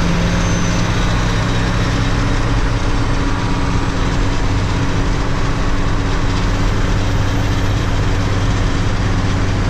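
Diesel engine of a 48-year-old Mack truck running at a steady speed, its low hum held constant over a steady rush of noise.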